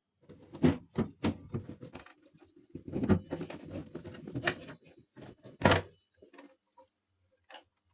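Irregular clicks, taps and scrapes of objects being handled, with the sharpest knocks about half a second, a second and a quarter, and nearly six seconds in; the handling dies away for the last couple of seconds.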